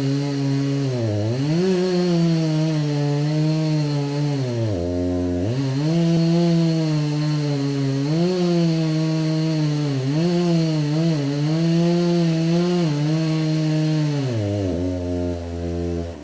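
Petrol chainsaw engine held at high revs, its pitch dropping briefly toward idle about a second in and again around five seconds, with several quick dips and recoveries later on. Near the end it falls back to a low idle.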